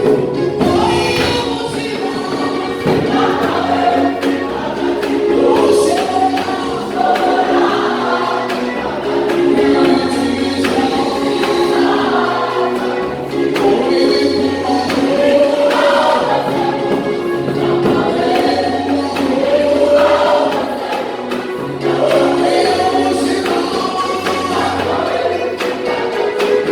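Choir singing a gospel worship song over instrumental backing with a bass line.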